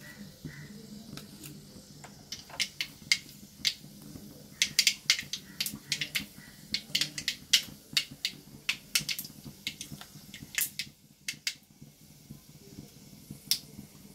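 Mustard seeds popping in hot sesame oil: irregular sharp pops, a few at first, coming thick and fast through the middle, then thinning out to a last few near the end. The spluttering shows the tempering is done and the oil is ready for the onions.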